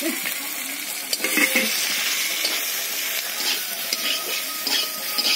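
Bathua (lamb's quarters) greens frying and sizzling in a metal wok while a metal spatula stirs them, scraping and tapping against the pan now and then.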